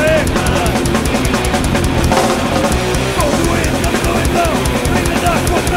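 Live thrash metal recording: distorted electric guitars and fast drums with rapid, evenly spaced cymbal hits, and short high notes bending up and down over the top.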